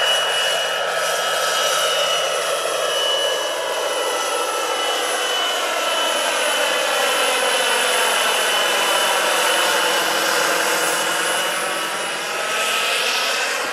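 Jakadofsky Pro 6000 model turbine of a scale Eurocopter EC-120 RC helicopter running in flight: a steady high whine over a rushing noise. The tone shifts and sweeps as the helicopter flies past.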